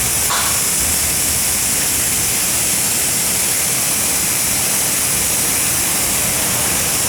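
Steady loud hiss, even and unchanging, strongest in the high treble.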